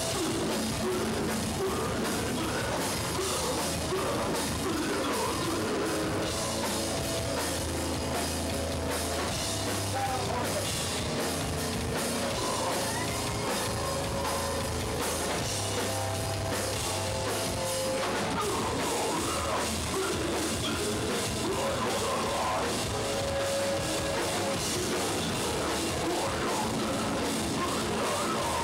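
Hardcore punk band playing live at a steady, loud level: drum kit with distorted electric guitars and bass.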